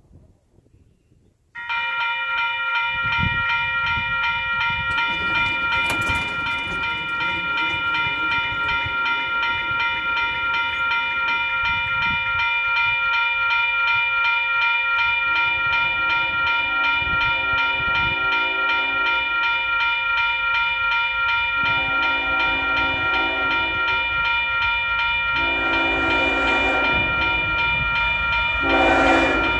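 Grade-crossing warning bell starts about a second and a half in and rings steadily in quick repeated strikes. From about halfway, the approaching Union Pacific freight's locomotive horn sounds two long blasts and a short one, then starts another long one: the standard signal for a grade crossing.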